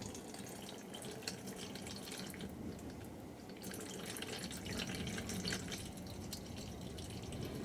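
Warm engine oil draining from a Toyota Tercel's sump into an oil catch pan: a steady, faint trickle and patter of liquid.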